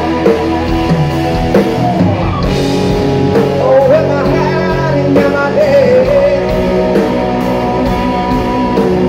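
Live rock band playing electric and acoustic guitars, bass guitar and drums, with a man singing lead over them.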